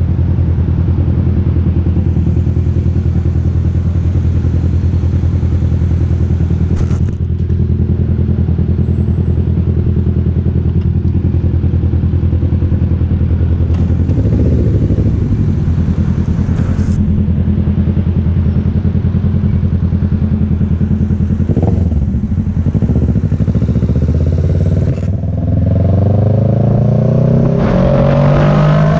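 Kawasaki sport motorcycle engine running steadily at low revs, then accelerating with a rising pitch over the last few seconds.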